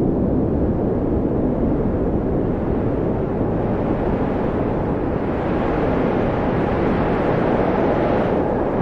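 Blizzard wind blowing steadily with a low, even rushing. It turns brighter and stronger as a gust builds from about five seconds in.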